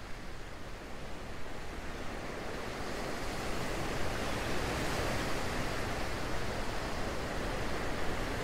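Steady rushing of water, like surf, swelling gradually over the first few seconds and then holding even.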